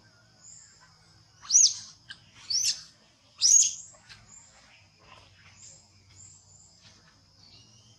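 Three loud, high-pitched squeals from a young macaque being pinned and grabbed in rough play, each rising then falling, about a second apart. A steady high insect drone runs underneath.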